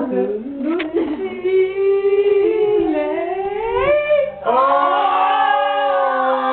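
A man singing karaoke into a microphone, holding long notes that slide up in pitch. About four and a half seconds in, a fuller sustained chord of backing music comes in under the voice.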